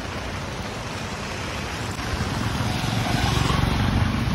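Heavy, wind-driven rain pouring down, heard from under an umbrella: a steady hiss that grows louder about two seconds in.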